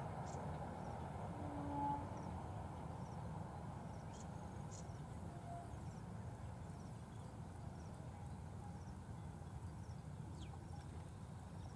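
Faint, steady rumble of a distant freight train rolling through the valley, with a short animal call about two seconds in and scattered faint chirps.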